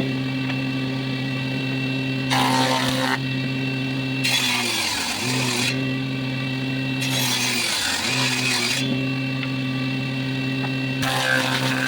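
Electric woodworking machine humming steadily while walnut is fed through it in four passes, each a burst of hissing cutting noise. Its pitch sags briefly twice as the motor takes the load.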